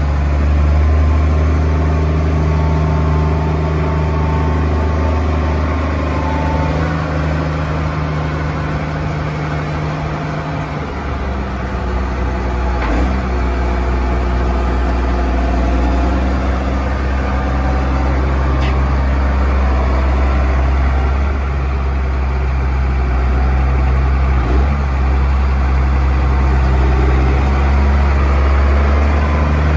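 A 2000 Case IH MX240 tractor's 227 hp CDC diesel engine running steadily while the tractor drives around. The engine note shifts about eleven seconds in, then holds steady again.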